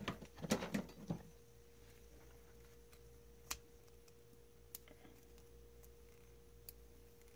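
Small clicks and rustling from hands handling wire ends and insulated crimp connectors: a flurry in the first second, then a few single clicks, over a faint steady hum.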